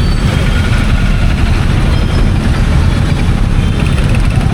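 Royal Enfield Meteor 350's single-cylinder engine running with a steady low rumble and a hiss of noise above it.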